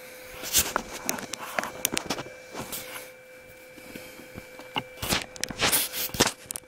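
Handling noise as a camera is lifted and repositioned: a clatter of clicks, knocks and rubbing in two bouts, about half a second in and again about five seconds in, over a faint steady whine.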